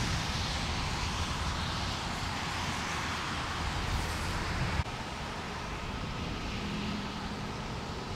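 Steady rushing outdoor background noise with a low rumble, which drops abruptly in level about five seconds in.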